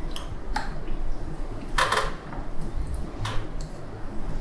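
Chopsticks and tableware clicking during a meal: a few soft, scattered clicks, with one louder brief clatter about two seconds in.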